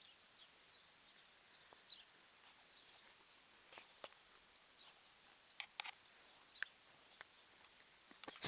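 Horses grazing close by: a scattering of short, crisp rips as their teeth tear off grass. They are sparse at first, come more often and louder from about halfway, and are loudest near the end, over a faint steady hiss.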